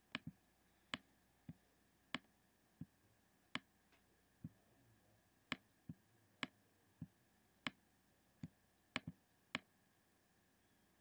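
Computer mouse clicking: about sixteen separate sharp clicks, roughly one every half second to second, some as quick doubles, as the pointer closes a window and draws handwriting on screen.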